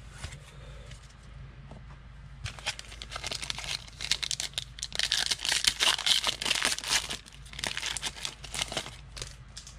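Plastic-foil wrapper of a football trading card pack being torn open and crinkled in the hands, starting about two and a half seconds in and loudest in the middle.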